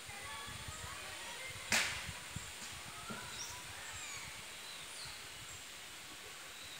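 Outdoor ambience with faint, high chirping bird calls. One sudden sharp noise about two seconds in fades within a fraction of a second.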